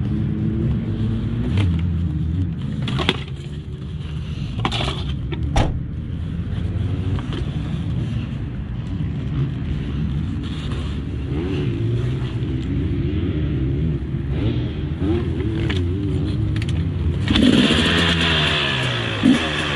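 Husqvarna TC250 two-stroke single-cylinder motocross engine running at low, varying revs, with a few sharp knocks in the first several seconds. About seventeen seconds in the throttle opens and the engine gets much louder and raspier.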